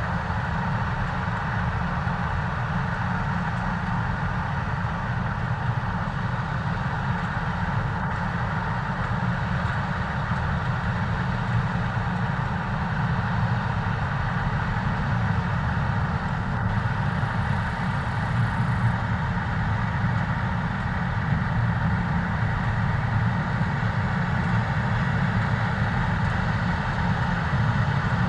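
New Holland CX8.90 combine harvester running steadily while harvesting barley, a continuous engine and machinery drone.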